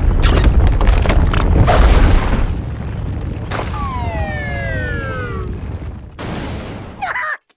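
Cartoon sound effects: a loud rumbling crash-like boom for the first couple of seconds, then a falling pitched glide lasting nearly two seconds, and another short noisy burst near the end that cuts off suddenly.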